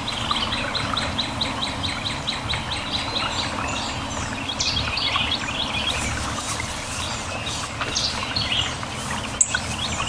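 Songbirds chirping outdoors. For the first few seconds one bird repeats a short, high chirp about three times a second, then several varied calls follow, over a low steady rumble. A single short click comes near the end.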